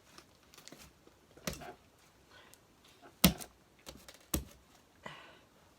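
Scattered sharp clicks and taps from hands handling slime and things on a tabletop, the loudest about three seconds in and another about a second later.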